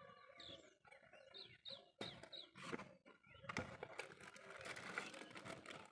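Faint bird chirps in the background, then rustling and a few clicks of the mouse's packaging being handled and opened from about three and a half seconds in.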